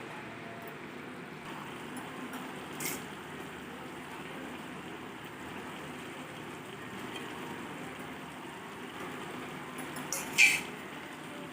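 Chicken pieces and freshly added curry leaves sizzling steadily in hot oil in a pan. A couple of sharp clinks of a utensil against the pan cut through, the loudest about ten seconds in.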